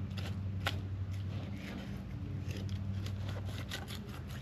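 Fillet knife tip scraping and clicking against a striped bass's rib bones as the fillet is worked free: a string of short scrapes and ticks, thickest from about two and a half seconds in. A steady low engine hum runs underneath.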